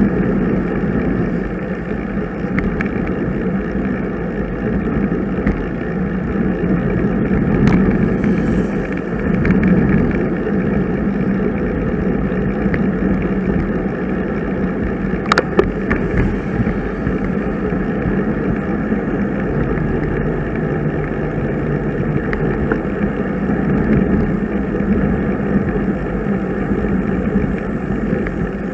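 Steady rush of wind and tyre noise from a moving bicycle, heard through the camera riding along, with a couple of sharp clicks about 8 and 15 seconds in.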